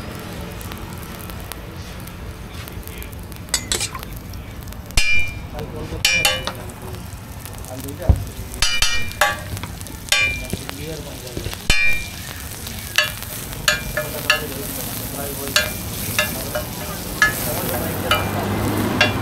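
Roti frying on a large flat griddle with a steady sizzle, while a metal spatula scrapes and taps against the griddle in short clattering clicks that ring briefly. The clicks come more often in the second half.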